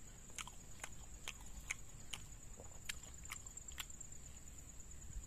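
Close-miked eating of a mung-bean martabak: short, sharp wet mouth clicks and smacks from chewing, roughly two a second, over a steady high whine.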